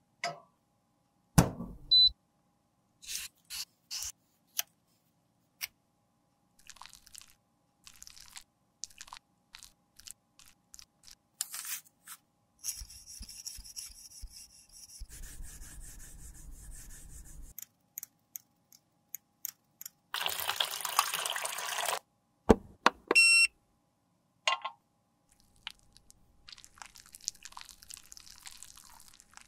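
Close-up handling sounds of makeup repair: clicks and taps of glass and plastic, then a stretch of scraping as a spatula works lipstick out of its tube. A short loud hiss follows, then a quick run of electronic beeps, and then a faint sizzle as product melts in a glass beaker.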